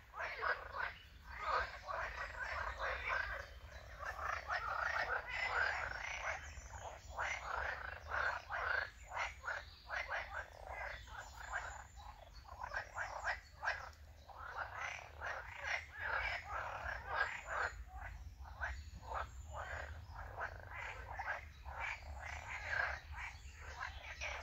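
A chorus of many frogs croaking at once, the calls overlapping into a continuous, rising and falling din.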